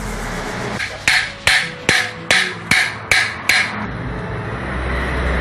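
Hammer striking metal seven times in an even rhythm, about two and a half blows a second, each with a short metallic ring.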